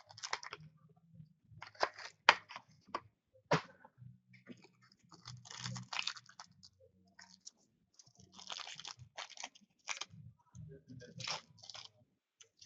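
Trading card packs being opened and handled: wrappers tearing and crinkling, and cards clicking and sliding against each other as they are flipped through, in a string of sharp clicks and rustles.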